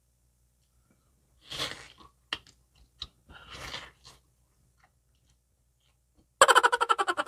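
Close-up mouth noises of someone eating noodles and chicken: two short hissy slurps or sucks about one and a half and three and a half seconds in, with small wet clicks between them. Near the end comes a louder, rapidly pulsing pitched burst from the eater.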